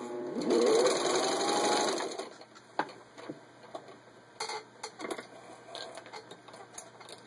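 Singer 15-91 sewing machine's gear-driven motor whining and rising in pitch as it drives the needle into a thick, dense leather-and-vinyl belt piece, then stopping about two seconds in, followed by scattered light clicks. The machine struggles to get started in the dense material.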